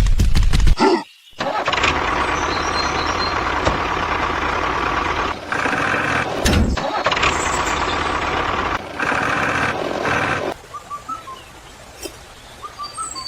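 A motor running steadily with a few short breaks, then cutting out about ten and a half seconds in.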